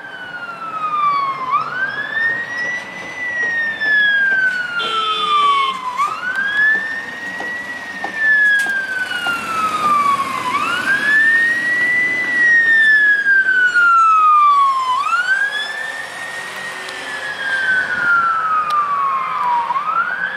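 Emergency sirens of Czech railway fire-brigade vehicles, a Ford Ranger and a Scania CAS 30 tender, wailing in a quick rise and a slow fall, about one cycle every four and a half seconds. There is a brief steady horn-like tone about five seconds in.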